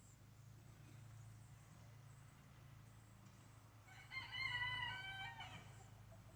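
A rooster crows once, a single call of nearly two seconds starting about four seconds in, over a faint steady low hum.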